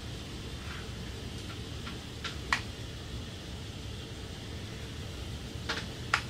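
Flat iron being drawn through straight wig hair, with a few sharp clicks from the iron, two pairs about three and a half seconds apart, over a steady background hum like a fan.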